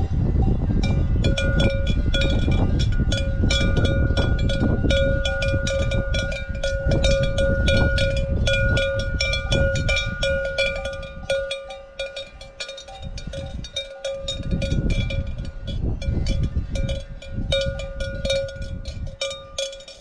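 A cowbell hanging from a grazing cow's neck strap clanks over and over at an uneven pace, several strikes a second, its ringing held between strikes. A low rumble sits underneath through the first half and fades about halfway through.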